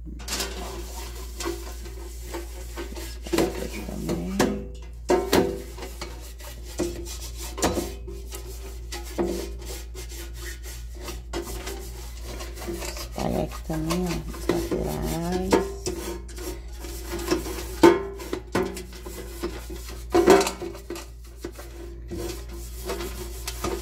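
A silicone pastry brush rubbing and scraping over the nonstick inside of a Philco air fryer drawer as cooking oil is spread, with irregular strokes and light taps against the pan. A steady low hum runs under it.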